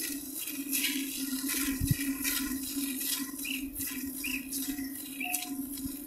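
Hand-milking a water buffalo: jets of milk squirting into a metal pot in rhythmic strokes, about two to three a second, over a steady low hum.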